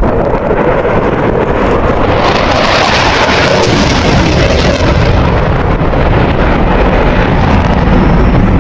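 Dassault Rafale C's twin Safran M88 jet engines in afterburner. The jet noise grows brighter and harsher from about two seconds in, then eases to a deeper rumble over the last few seconds.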